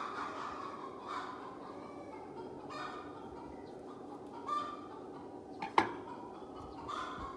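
Chickens clucking now and then in the background, with one sharp chop of a cleaver through a plucked chicken into a wooden board a little before six seconds in, the loudest sound, with a lighter knock just before it.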